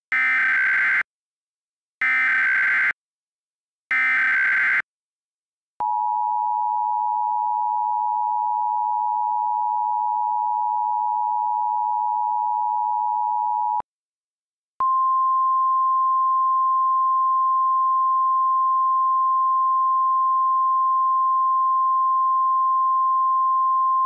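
Emergency alert tones. First come three short, buzzy bursts of SAME header data about a second apart. Then the two-tone attention signal holds for about eight seconds, and after a one-second gap a single steady tone starts and carries on.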